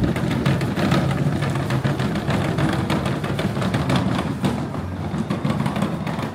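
Hard plastic wheels of a push-along children's ride-on toy car rolling over block paving: a steady rattling rumble.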